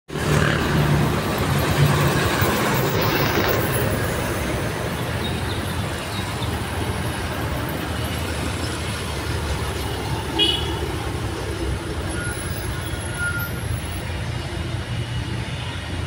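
Road traffic passing close by: trucks and motorcycles running past, loudest in the first few seconds. A brief high-pitched sound comes about ten seconds in.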